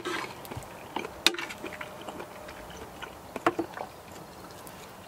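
A fork and knife clicking and scraping against melamine camping plates while eating, with a few sharp clinks, the clearest about a second in and again about three and a half seconds in.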